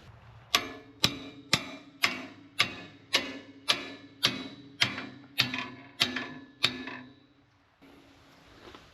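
About a dozen steady hammer blows on a steel wrench, roughly two a second, each with a short metallic ring, beating loose a factory-torqued bolt on the tractor's rollover safety bar mount. The blows stop a little before the end.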